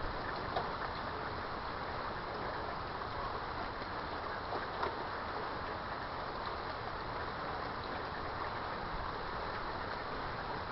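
Steady rain falling, an even hiss of drops, with a couple of louder single drop ticks.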